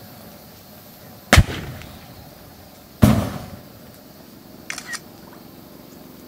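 Disposable butane lighters bursting in a fire: two loud bangs about a second and a half apart, then two smaller pops in quick succession, over the steady noise of the flames.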